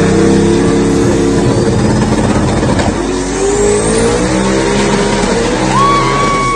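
Sedan's engine revving hard and held at high revs while its rear tyre spins in a burnout, the revs climbing again about three seconds in. Near the end the spinning tyre sets up a steady high squeal.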